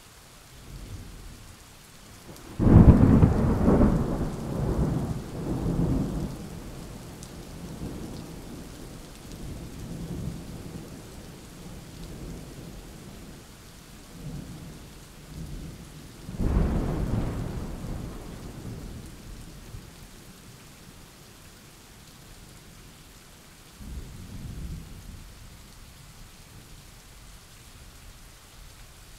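Thunderstorm with steady rain and thunder: a sudden loud clap about three seconds in that rolls on in several swells, a second peal about halfway through, and a softer rumble near the end.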